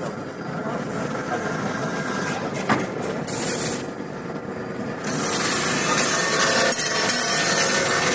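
Roll forming machine running, a steady mechanical din with a sharp click about three seconds in, growing louder and hissier about five seconds in.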